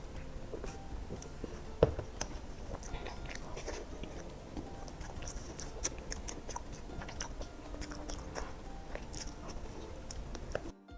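Close-miked eating sounds: soft bites, chewing and small wet clicks of a person eating desserts, with one sharp click about two seconds in. It cuts off abruptly near the end, where music begins.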